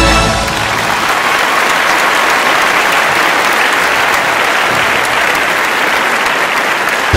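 Large audience applauding, a dense, steady clapping that fills the hall, as theme music cuts off right at the start.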